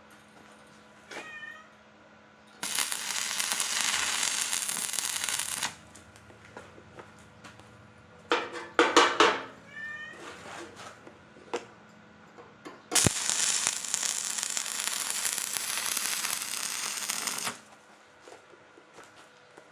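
A cat meowing several times, the loudest call a little before the middle. Two long bursts of harsh, steady hissing noise come before and after it, the first about three seconds long and the second about four and a half.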